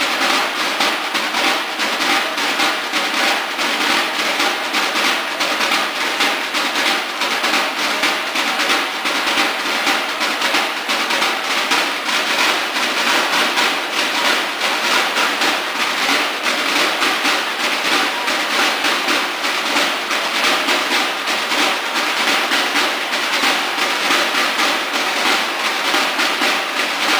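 A corps of snare drums of a school banda de guerra playing together in a steady, rapid rhythm with rolls.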